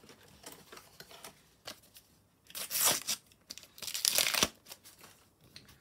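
Thin sticker packet being torn open by hand: two rips about two and a half and three and a half seconds in, between light rustling of the wrapper and stickers.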